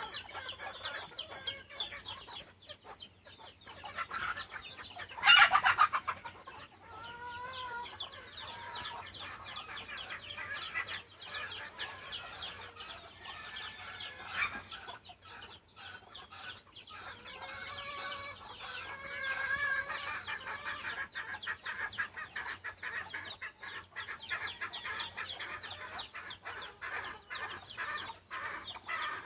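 Gamefowl chickens clucking continuously, with drawn-out calls that sound like roosters crowing now and then. A single loud, short call stands out about five seconds in.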